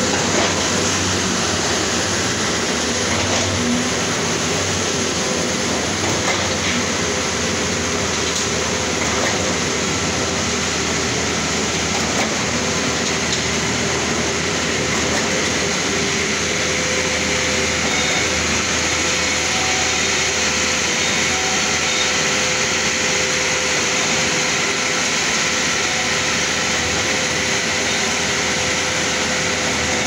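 Luton JBS40-10-84R trailer-mounted concrete mixer pump running: a loud, steady mechanical din with a faint steady tone underneath.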